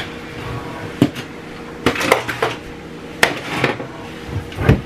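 Kitchen items knocking and clattering on a wooden counter as it is wiped down and things are moved about. There is a sharp knock about a second in, short clusters of clatter around two and three seconds in, and a duller thump near the end.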